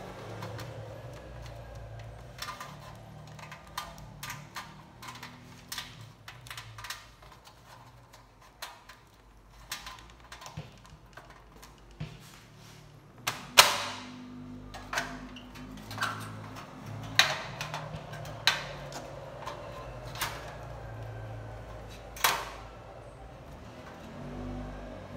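Scattered clicks, taps and knocks of metal and plastic parts being handled as an LCD monitor's casing and metal shield are taken apart, with a few sharper knocks in the second half, over a low steady hum.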